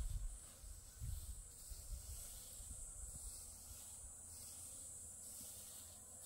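Faint, steady, high-pitched drone of insects in a dry summer field, with a few low rumbles in the first couple of seconds.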